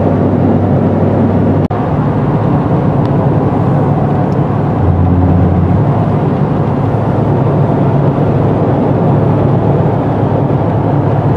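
Steady road and engine noise inside a moving car's cabin, a low drone under a rushing hiss, with the drone's pitch shifting slightly about five seconds in.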